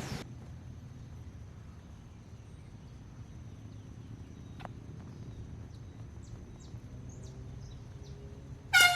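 Quiet outdoor ambience with short bird chirps and a faint steady high tone, then near the end a single short, loud blast from a handheld air horn.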